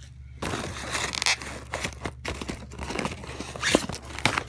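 Crinkling and rustling of a firework pack's packaging being handled as it is unpacked, a dense run of small crackles and clicks.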